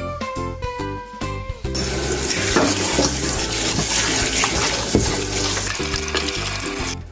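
Kitchen tap running hard into a stainless-steel bowl of raw pork pieces in a sink, water splashing as the meat is washed by hand. The water starts about a second and a half in and stops just before the end.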